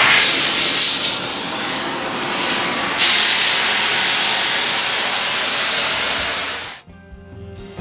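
Oxy-fuel cutting torch hissing loudly as it burns a stuck brake drum off a differential; the hiss jumps louder about three seconds in. It stops shortly before the end, and acoustic guitar music begins.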